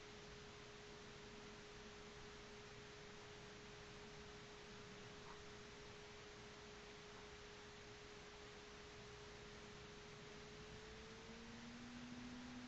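Near silence with a faint, steady single tone, like an electrical hum. About eleven seconds in, the tone bends slightly upward and gives way to a lower steady tone.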